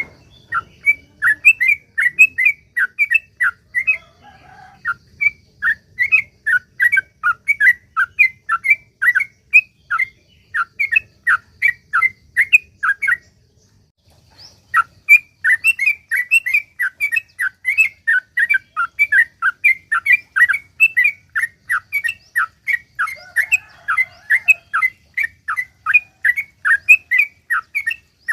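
Yellow-vented bulbul (trucuk) singing a long, fast run of short chattering notes, about three to four a second. The song breaks off for about a second near the middle, then resumes.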